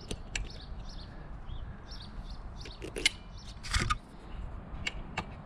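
Scattered sharp clicks of a hand tool turning in the motorcycle's seat bolts, with a brief louder scrape about four seconds in. Faint bird chirps in the background.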